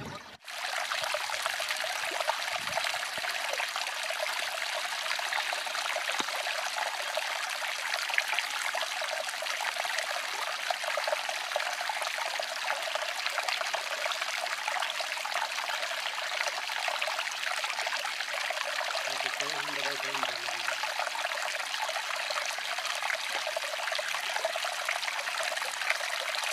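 Running water of a stream, a steady trickling rush.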